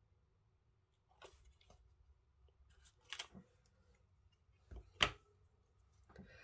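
Light handling of craft supplies on a desk mat: a few soft, separate clicks and taps, the sharpest about five seconds in, as a clear stamp is lifted off the card and an ink pad is moved.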